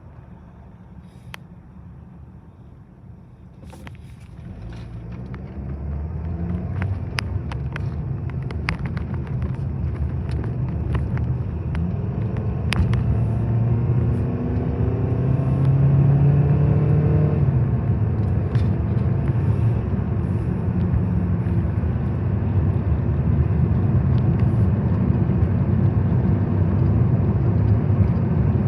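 Train approaching and passing: a low rumble builds from about four seconds in, with scattered sharp clicks. It is loudest around the middle, then stays as a steady heavy rumble as the train goes by.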